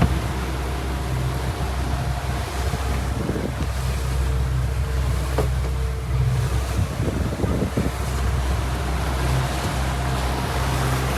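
Boat engine running steadily under way, with wind buffeting the microphone over a constant wash of water.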